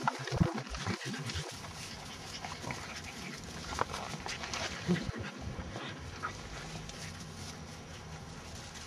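Kelpie mother and her five-week-old puppies making dog sounds: a cluster of short, low sounds in the first second and a half, then fainter sounds, with one short pitched sound about five seconds in.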